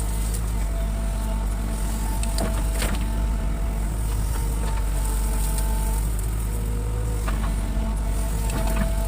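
Excavator's diesel engine running steadily, with a higher whine that comes and goes and a few knocks.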